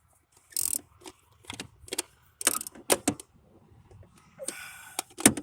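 Hand ratchet with an extension working a distributor cap hold-down fastener: irregular metallic clicks and knocks, with a couple of short scraping rasps.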